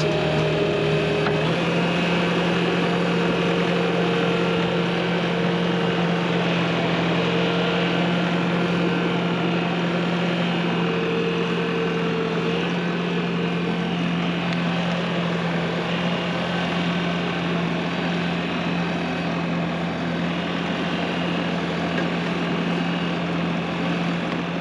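A vehicle engine running steadily at constant speed, a continuous even hum with no change in revs.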